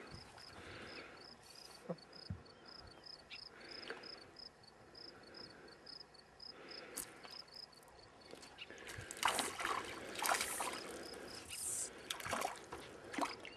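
A hooked fish splashing at the water's surface as it is played up beside the boat, in noisy bursts during the last few seconds. Under it runs a steady high chirping, about two or three chirps a second.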